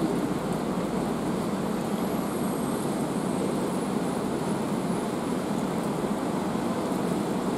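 Steady rain falling in a city, an even hiss with a constant low rumble under it. A faint thin high whine sounds from about two seconds in to about five.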